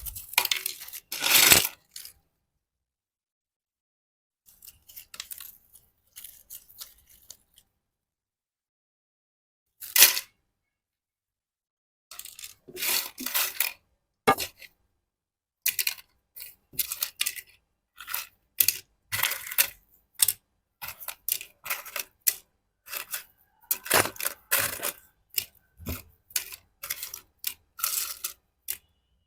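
Crisp snack chips and their packet being handled: irregular short crinkles, clicks and light taps, with a single sharp click about ten seconds in and a dense run of them through the second half.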